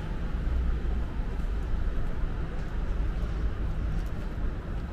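Steady low rumble of outdoor background noise, without distinct events.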